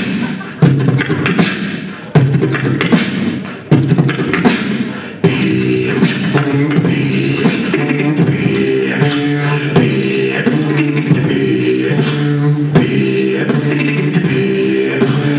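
Two beatboxers performing into microphones, making vocal drum hits and clicks. About five seconds in, a pitched vocal line joins and carries on under the beat.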